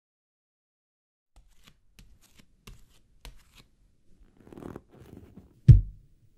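Faint scattered ticks and a soft rustle of small handling noises, then one loud, heavy low thump near the end.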